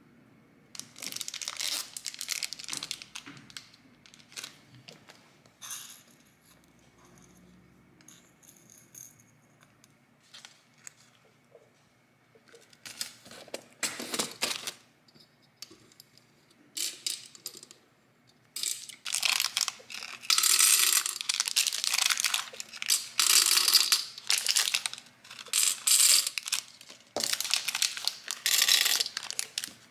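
Small plastic packets of nail-art parts crinkling as they are handled and opened, with small clicks from beads and charms in clear plastic cases. The handling comes in short bursts at first and is near-constant in the second half.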